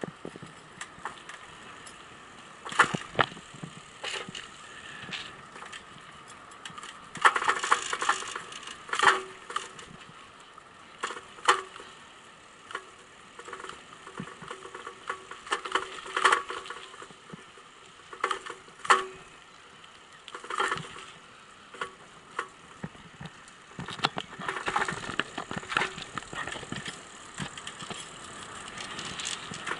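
Bicycle rolling over rough, cracked asphalt, rattling and clattering in irregular jolts as it goes over bumps, with quieter rolling noise between them.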